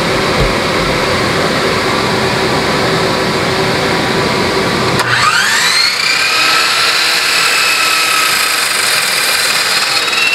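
A steady background hum, then about halfway through a miter saw's motor switches on with a click and spins up: its whine rises quickly in pitch and then holds steady as the spinning blade is lowered toward a short board.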